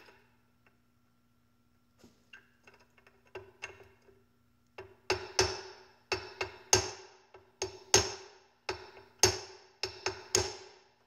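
Hammer tapping a small punch to drive a steel roll pin into an AR-15 adjustable gas block: a few light taps, then from about five seconds in harder strikes about two a second, each with a short metallic ring.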